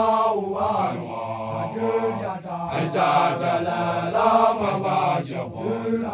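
Basotho initiates chanting together in unison: a drawn-out group song in phrases that rise and fall in pitch, with short breaks between them.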